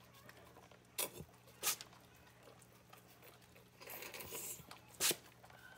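Faint wet clicks and a brief rustle as an Australian Shepherd mother dog licks and tends her newborn puppy on whelping paper, with a few short separate smacks.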